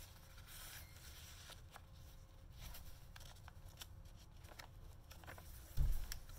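Paper rustling and soft scattered clicks as the paper inserts and pages of a handmade junk journal are handled and turned, with a dull thump near the end as a page is turned over.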